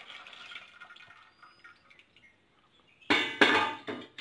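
A thin stream of sugar syrup trickles from a steel pan into a steel pot and fades out. About three seconds in there are two loud, ringing clanks of steel cookware.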